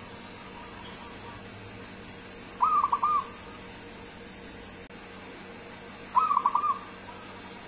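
Zebra dove (perkutut) cooing its song: two short phrases of four or five quick notes each, one about three seconds in and another about six seconds in.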